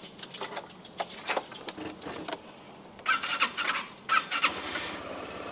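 A Suzuki UY125 scooter's single-cylinder engine is cold-started at −10 °C. A few clicks come first, then the electric starter cranks in two short bursts about three and four seconds in. The engine then catches and runs at a steady idle.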